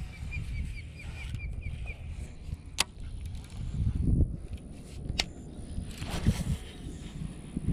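Wind rumbling on the microphone over handling of a baitcasting rod and reel during the retrieve of a large swimbait, with sharp clicks about three and five seconds in. A quick run of faint high ticks sounds in the first two seconds.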